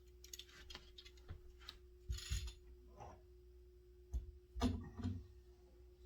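Faint handling noises from a fishing rod being moved and shown: scattered light clicks and taps with a few soft thumps, the loudest a little after halfway, over a steady faint hum.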